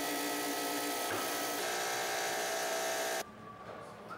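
Small electric motor of a landing-gear training aid running with a steady whine, working the gear's downlock linkage. It cuts off abruptly about three seconds in, leaving a faint hiss.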